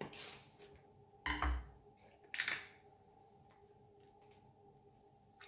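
Hard plastic water-filled glitter globes being handled: a short rustle at the start, a thump about a second and a half in as one globe is set down on the wooden table, and another brief plastic knock about a second later.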